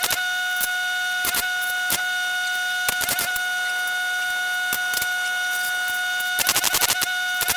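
An electric welding arc on aluminium hopper bows: a steady high-pitched buzz with scattered sharp ticks, and a short stretch of rapid crackling near the end.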